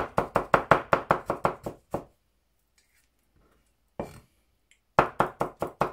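Chinese cleaver rapidly chopping ginger on a wooden cutting board, about six or seven strokes a second, stopping after about two seconds. A single knock comes about four seconds in, and the rapid chopping starts again about a second later.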